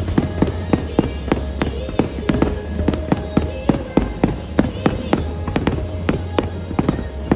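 Aerial fireworks shells bursting in rapid, irregular succession, several sharp bangs a second, with music playing underneath.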